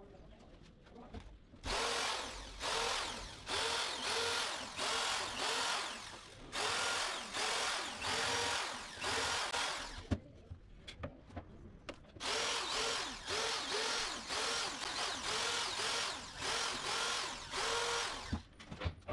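Corded electric drill run in short trigger bursts, each a brief rising whine as the motor spins up, driving screws into MDF cabinet panels. The bursts come in three runs with a pause and a few clicks in between.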